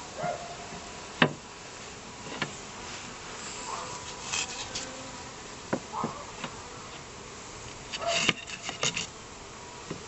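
Honeybees buzzing around an open barrel top bar hive, with about five sharp wooden knocks as empty top bars are laid onto it, the loudest about a second in. Brief rustling near the middle and end.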